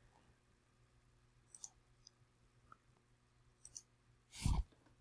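Quiet room with a few faint, sharp clicks, then one short, louder noise near the end.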